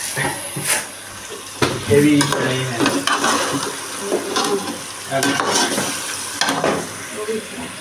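A metal spoon stirring and scraping chicken pieces around a steel pot while they sizzle in hot oil, with repeated clinks of the spoon against the pot.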